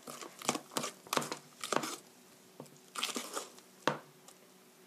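Thick apple pancake batter being stirred with a wooden spoon in a stainless steel bowl: a run of quick stirring strokes, a pause about two seconds in, then a few more strokes.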